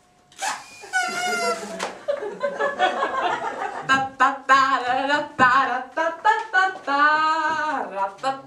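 A voice singing a tune. A wavering held note comes about a second in, then a run of short sung notes, then another long held note near the end.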